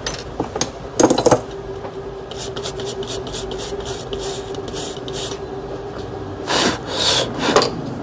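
Short rasping strokes of a small tool scrubbing a phone circuit board's display connector clean, about three to four strokes a second, after a few sharp clicks about a second in; a louder rub of handling comes near the end.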